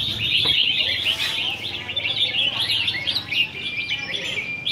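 Several caged red-whiskered bulbuls singing at once, a dense chorus of quick, overlapping warbling phrases, with one held whistle near the end.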